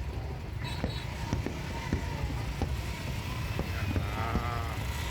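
Outdoor crowd hubbub with a steady low rumble and scattered small crackling pops from the fireworks, and a wavering voice calling out about four seconds in.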